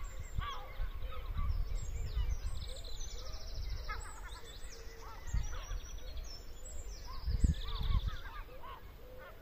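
Dawn bird chorus: many small birds chirping and trilling at once, mixed with lower, louder calls. Low rumbling bursts, the loudest about seven and a half seconds in.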